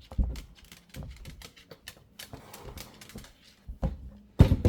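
Irregular clicks and knocks of a pet carrier being handled with a cockatoo, with a louder knock near the end.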